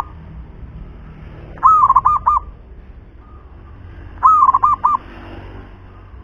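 Zebra dove (perkutut) cooing its song. Two full phrases come about two and a half seconds apart, each a bent opening note followed by three quick rolling coos, and the tail of another phrase ends at the very start.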